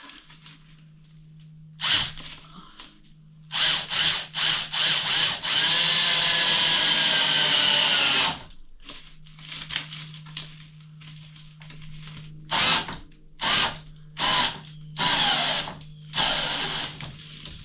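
Power drill driving a screw into wood: a few short trigger bursts, one long run of about three seconds in the middle, then more short bursts near the end.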